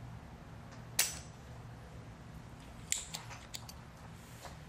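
Spring-loaded solder sucker (desoldering pump) snapping once, sharply, about a second in as its plunger is released to pull molten solder out of the circuit board's pin holes. A few lighter clicks and taps of tools follow around three seconds in.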